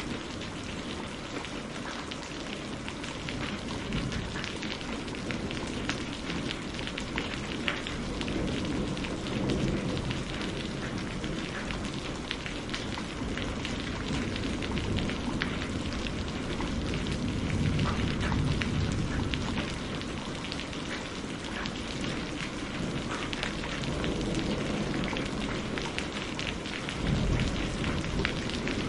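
Steady rain with a dense patter of close drops. Low thunder rumbles swell under it several times, the strongest near the end.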